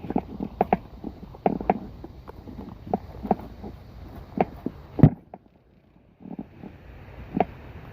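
Irregular sharp taps and knocks, a few a second, with one loud thump about five seconds in; after a brief lull, a steady rush of wind on the microphone takes over.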